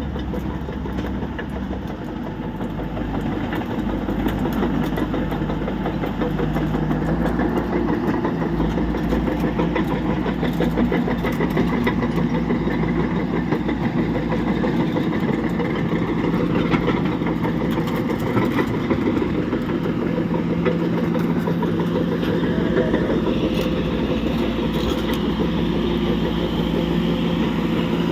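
Caterpillar bulldozer's diesel engine running steadily with a rapid pulsing beat, getting louder about four seconds in.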